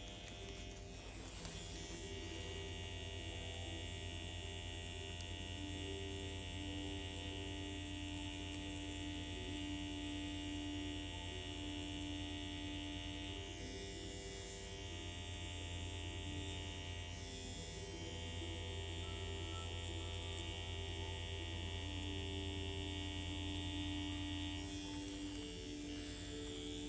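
Permanent makeup machine's small motor humming steadily while it works, easing off briefly twice in the middle and stopping near the end.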